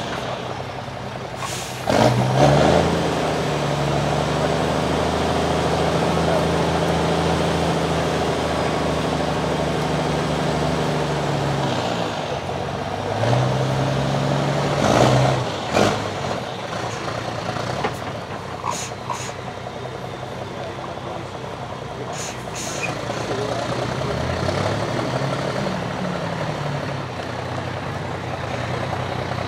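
Diesel engine of a MAN 8x8 truck trial truck working under load as it crawls over a dirt mound, the revs rising and falling several times.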